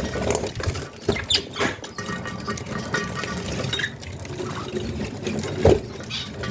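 Budgerigars chattering and chirping in short, busy bursts, with a sharp knock near the end.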